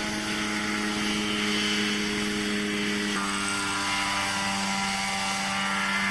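Homemade helicopter's engine and rotor running steadily in a constant drone, with a slight change in tone about three seconds in.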